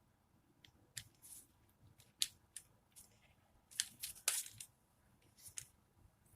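Plastic toy gun being handled while a magazine is swapped: scattered sharp plastic clicks and scrapes, with a quick run of several clicks a little before the middle.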